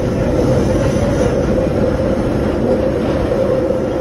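London Underground Northern line 1995 Stock tube train running through a tunnel, heard from inside the carriage: a steady loud rumble with a steady mid-pitched hum.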